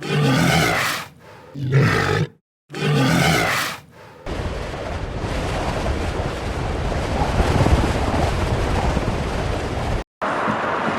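A large animal calling loudly three times in quick succession, each call about a second long, followed by several seconds of steady rough noise.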